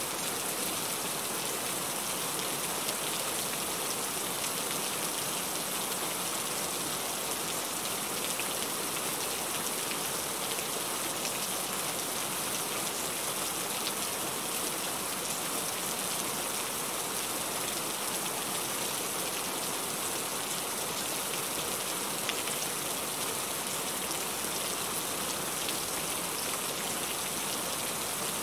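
Heavy rain falling steadily: a dense, even hiss of rain with the fine patter of individual drops, no let-up or thunder.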